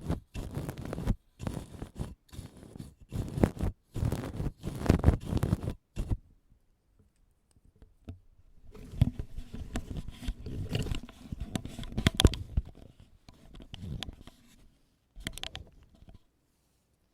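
Ear pick scratching and scraping in short, separate strokes for about six seconds, then a quiet pause, then a longer stretch of softer rubbing and scraping, with one more brief scrape near the end.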